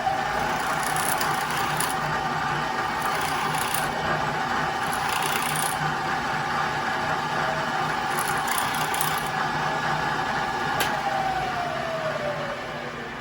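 Electric motor of a drilling machine spinning up, running steadily while a countersink drill cuts deeper into a metal lamp leg, with scraping cutting sounds now and then. The motor winds down near the end.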